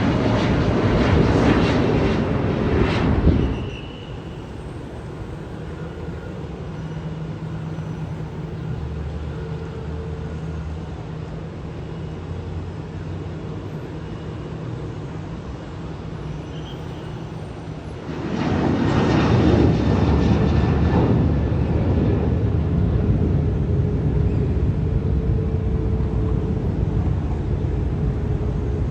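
Jet airliner engines, loud, cutting off abruptly a few seconds in. A quieter stretch with a low steady hum follows. Loud jet engine noise comes back suddenly past the middle and slowly fades.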